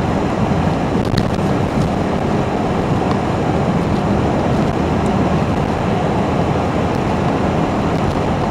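Steady low roar of road traffic, mixed with wind buffeting the microphone.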